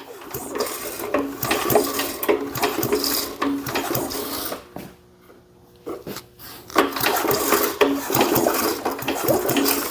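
3.5 hp Briggs & Stratton lawnmower engine being turned over by hand with the spark plug out, in two stretches of rasping, rattling noise with a short pause about halfway. It spins over freely, working penetrating oil through a dry cylinder.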